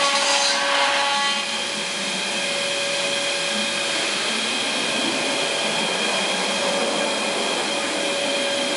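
5-axis CNC router running a cutting job: the spindle gives a steady whine over the noise of the cut, with a louder rush of cutting noise in the first second and a half.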